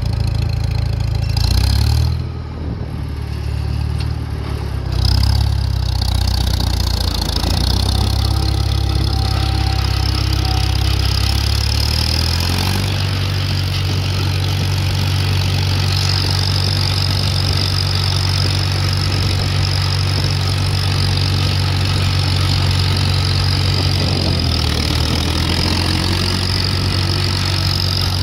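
Farmall Super MTA tractor's four-cylinder engine running under load as it pulls away with a cultipacker. The engine note shifts a few times in the first thirteen seconds, as the tractor gets moving and the Torque Amplifier is released, then settles into a steady pull, with one more brief change about twenty-four seconds in.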